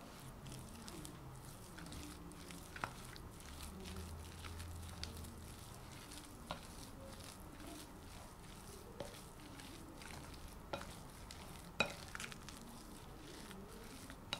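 Wooden spoon stirring and folding a soft mashed-potato mixture in a glass bowl: a soft squishing scrape, with now and then a sharp click as the spoon knocks the glass.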